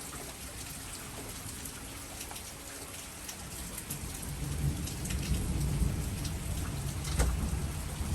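Heavy rain falling with many small drop hits, joined by a low rumble that builds from about halfway through, and one sharp crack near the end.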